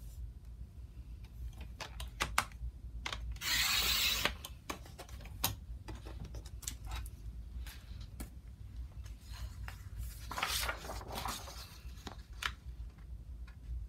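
Hands working paper strips for paper beads: scattered light clicks and taps, with a short rustle of paper about three and a half seconds in and a softer one around ten seconds.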